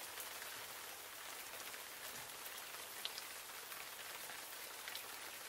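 Steady rain falling, faint and even, with the odd single drop ticking out above it.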